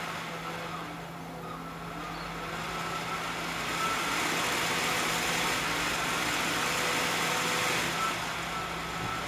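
Cooler Master Jet 4 CPU fan running while its speed dial is adjusted: the air rush gets louder about three to four seconds in as the fan speeds up, eases slightly near the end and comes back up. A faint whine wavers in pitch with the fan speed over a steady low hum.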